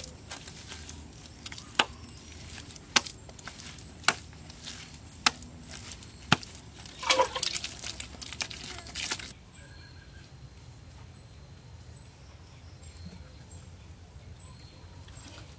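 Handfuls of wet cement mortar slapped onto a wall, a sharp slap about once a second, then a short spell of scraping and smearing. About nine seconds in, this cuts to a quieter outdoor background with faint high chirps.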